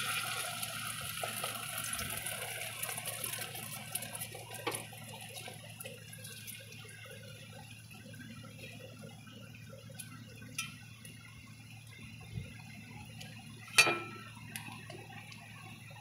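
Beaten egg frying in hot oil in a kadai: a strong sizzle right at the start that settles into a softer, steady sizzle. A few light clicks, and one sharp knock near the end.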